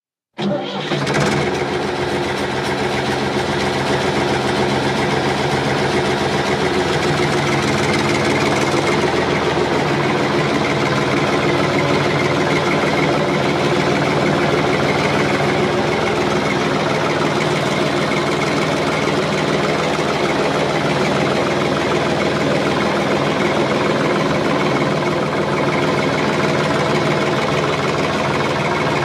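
An engine running steadily at a constant speed, cutting in suddenly just after the start.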